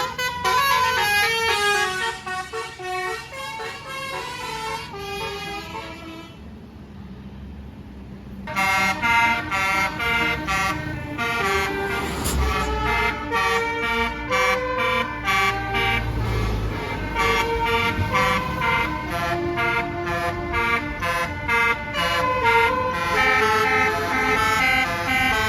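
Tour bus basuri multi-note air horn playing a tune in quick stepped notes, dropping away for a couple of seconds about six seconds in and then starting again. A bus engine rumbles underneath midway through.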